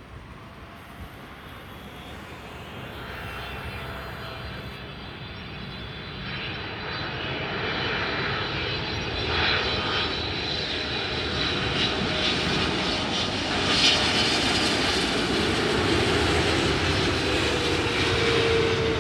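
Boeing 777-300ER airliner on final approach, its twin GE90 turbofan engines running. The sound grows steadily louder as the aircraft nears, a high whine over a wide rumble.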